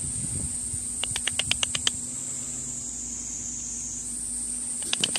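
Insects drone steadily at a high pitch, with a quick run of about eight sharp chirps a second in and a few more near the end.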